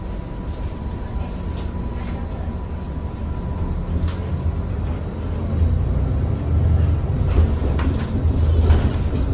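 Inside an MAN A22 diesel city bus under way: a steady low engine and road drone that grows louder about halfway through, with a few clicks and rattles from the cabin.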